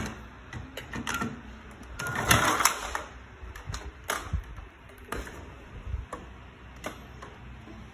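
Hard plastic toy parts clicking and knocking as a toy fire truck and its ladder basket are handled and a water bottle is set into the basket, with a short scraping rustle about two seconds in.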